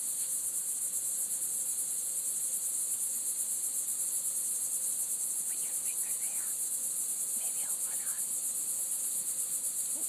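Steady high-pitched insect chorus, a dense drone with a fast, even pulse.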